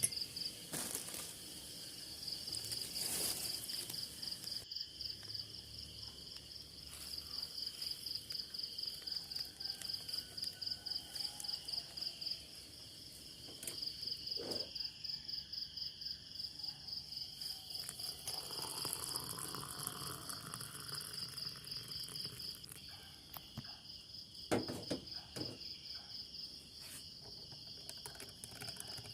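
Crickets chirping at night: a steady, high pulsing trill of a few chirps a second that breaks off briefly a few times. A couple of faint knocks and a soft passing hiss sound underneath.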